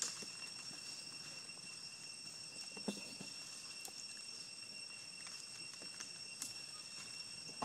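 Steady high-pitched drone of an insect chorus, holding a few unchanging pitches. Scattered soft clicks and a brief faint call about three seconds in.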